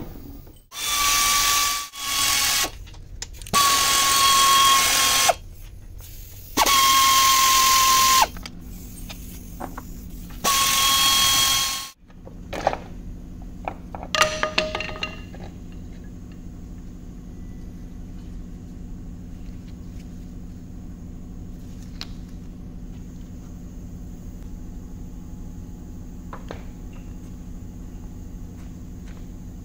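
Cordless power tool spinning bolts out of a Toyota 2AR-FE engine during teardown: four runs of about two seconds each with a steady whine, then a shorter run a couple of seconds later, followed by a faint steady hum.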